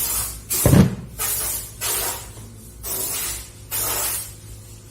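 Sandpaper rasping against a shaft spun in an electric drill, in repeated strokes about once a second over a steady low hum, with one low thump near the start.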